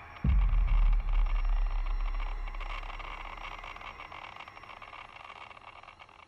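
Deep cinematic boom: a sudden low hit about a quarter second in, its rumble slowly dying away over the next few seconds, over a steady hiss.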